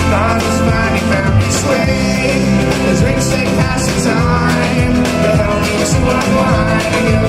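Live rock band jamming, loud and continuous, with bending lead lines over a steady beat.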